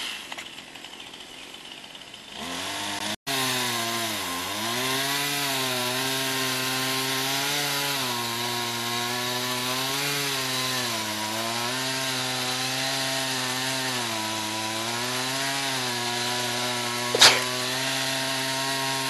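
Two-stroke chainsaw dropping back to a low idle, then throttled up about three seconds in. It runs steadily at high revs to the end, its pitch sagging now and then as the chain bites into the wood. A single sharp crack near the end.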